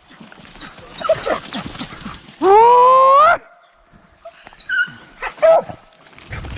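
Hunting hound giving one long, loud howl that rises in pitch and then holds, about two and a half seconds in, with a few shorter yelps near the end.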